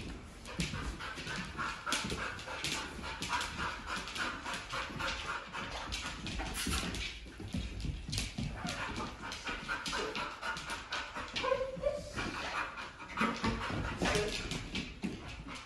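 Over-aroused Rhodesian ridgeback–pit bull mix panting rapidly, with a few short whines in the later part, and light clicking as it moves about on a laminate floor.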